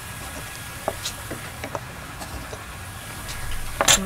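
Hand marking tools on a wooden board: a few faint taps and scrapes of a wooden marking gauge, then a short, louder clatter near the end as a metal try square is laid against the board for marking.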